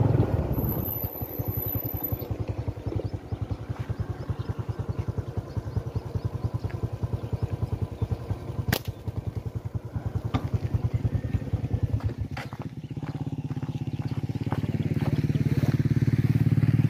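A small engine running, its firing beats evenly spaced and low. After about twelve seconds it smooths out and grows louder. A single sharp click comes about nine seconds in.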